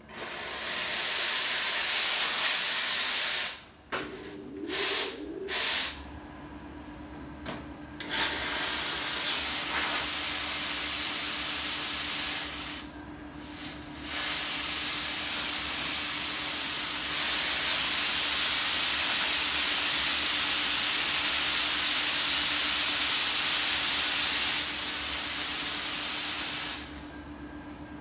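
Steam wands of an Iberital L'Anna two-group espresso machine opened and purging, hissing loudly. There is one long blast, two short bursts, then longer blasts with brief pauses, stopping about a second before the end. A faint low steady hum runs underneath from about six seconds in.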